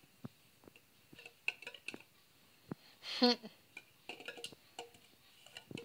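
Light plastic cup tapping, clicking and rattling against the carpet as a ferret noses and grabs it in its mouth. One brief, louder pitched sound about three seconds in.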